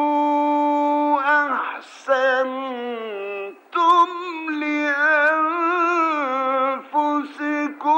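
A male Quran reciter chanting in a melodic, drawn-out style. He holds one long steady note, breaks off with a short breath about a second and a half in, then sings wavering, ornamented phrases with brief gaps between them.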